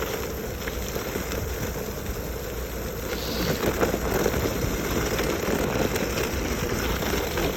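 Backfire Ranger X3 electric skateboard rolling over wet, rough ground: a steady rumble of wheel and road noise that grows a little louder about halfway through.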